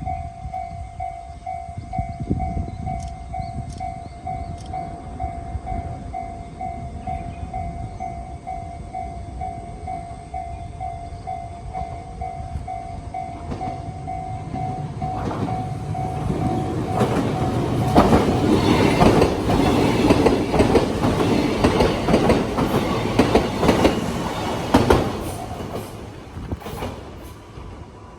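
Japanese level-crossing warning bell ringing in a quick, even pulse. About halfway through, an electric train runs over the crossing and drowns the bell out, its wheels clattering over the rail joints. The passing train is loudest a few seconds after it arrives and fades away near the end.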